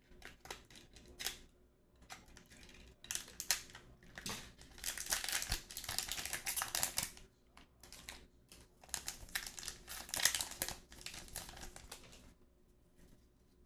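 Wrapper of a hockey card pack crinkling and tearing as it is opened by hand, in irregular crackling bursts that stop near the end.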